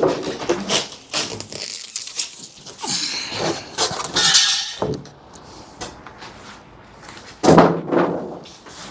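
Cardboard packaging of a new HVAC unit being pulled off and handled: scraping, rustling and knocks of cardboard, with a loud thump near the end.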